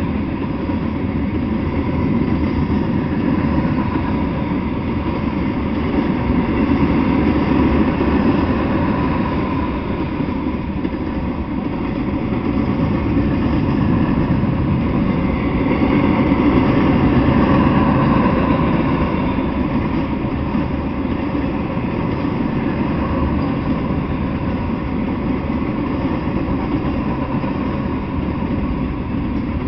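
A freight train of boxcars, covered hoppers and a tank car rolling past on steel rails: a steady, loud rumble of wheels on track that swells slightly a couple of times.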